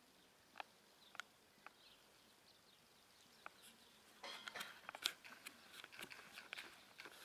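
A German riding pony trotting on a sand arena: faint, irregular hoof clicks and scuffs, a few at first and coming much thicker from about four seconds in.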